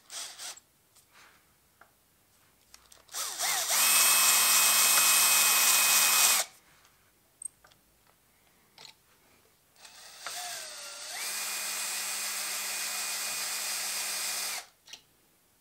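Bosch 18 V cordless drill running a 6 mm bit to start the screw holes through the slotted DRO scale brackets into the mill table, centred in the slots. Two runs, each rising in pitch as the trigger is squeezed and then holding a steady whine: a louder one about three seconds in, and a quieter, longer one from about ten seconds in.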